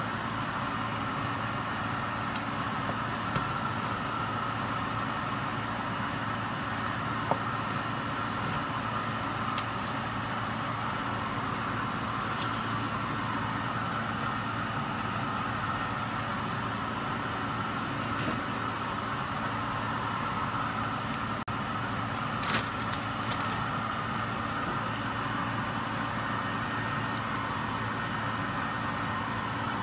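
Steady mechanical hum of a small motor or fan, with a few short sharp knocks of a wooden spoon on the baking pan.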